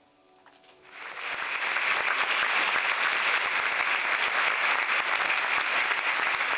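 Concert-hall audience applauding: the clapping breaks out about a second in, swells quickly and then holds steady as a dense, even roar of many hands.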